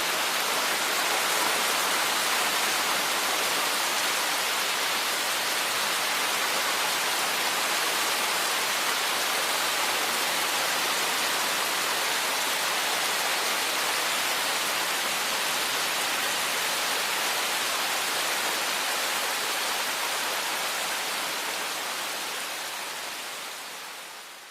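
Steady rain falling, an even hiss that fades out over the last few seconds.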